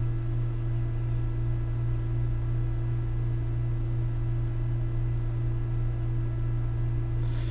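Steady electrical hum: a strong low tone with fainter higher overtones, unchanging throughout.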